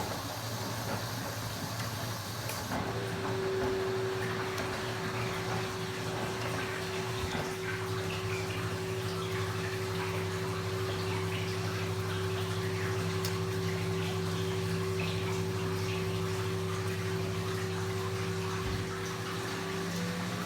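Washing machine with water running in it, and a steady humming tone that comes in about three seconds in.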